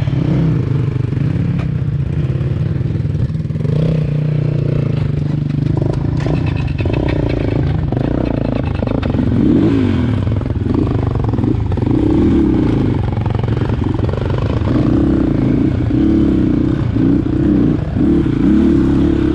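Dirt bike engine revving up and down over and over as the rider works the throttle, with some clatter from the bike.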